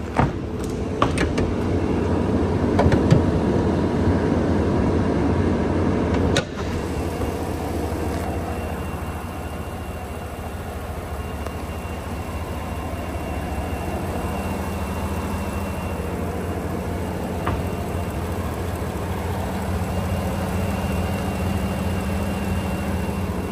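The 2016 Cadillac Escalade's 6.2L V8 idling steadily with a low hum. A few sharp clicks in the first few seconds, ending in a knock about six seconds in.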